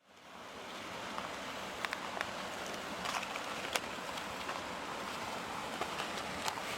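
Waterfall: a steady rush of falling water with small splashes, fading in at the start.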